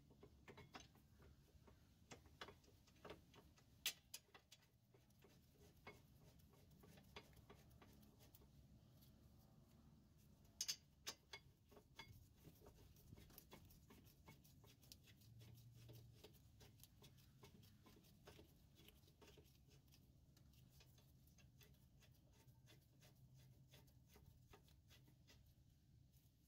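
Near silence with faint, scattered metallic clicks and ticks as the rear brake caliper bracket and its bolts are handled and threaded in by hand. A couple of sharper clicks stand out about four seconds in and again around ten to eleven seconds in.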